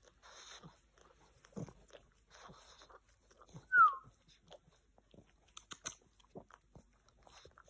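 Pug licking and nibbling at its own paw: wet licking and smacking clicks come in short irregular bouts. A brief, high falling squeak about halfway through is the loudest sound.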